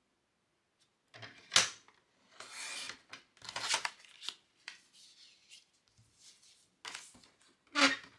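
Sliding-blade paper trimmer cutting cardstock, with paper handling: sharp knocks from the trimmer's arm and blade carriage, a short swish of the blade running through the card, and rustling of the cut cards. The loudest knocks come about a second and a half in and again near the end.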